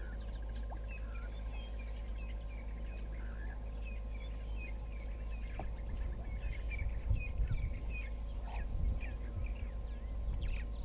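Several birds calling with short chirps and a quick trill, over a low rumble that turns uneven and a little louder from about six seconds in.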